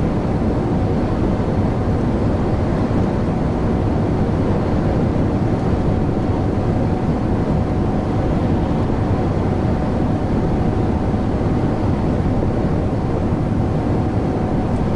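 A truck's engine and tyres droning steadily while it cruises on the motorway, heard from inside the cab, with a thin steady whine running through it.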